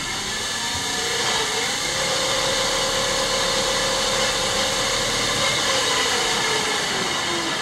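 Solar boat's electric drive motor running under the lever of a newly wired speed controller: its whine climbs to a steady pitch over a rush of noise, then falls as the motor slows in the last couple of seconds.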